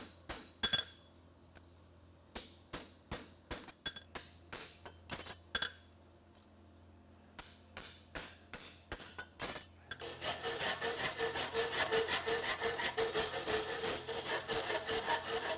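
Hammer blows striking a punch or stamp into a steel horseshoe on the anvil, in short runs of sharp ringing strikes with pauses between, as the cooled shoe is stamped. About ten seconds in they give way to the rhythmic rasp of a rat-tail file worked back and forth on the shoe in a vise, about three strokes a second.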